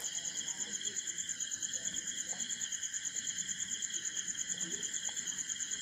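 A cricket chirping steadily in a fast, even, high-pitched pulse.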